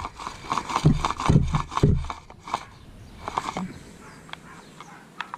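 Scraping and rubbing of the pull-starter's parts being handled and fitted, with a few louder low knocks about one to two seconds in.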